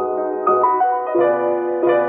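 Background piano music: a melody over chords, with a new note struck about every half second.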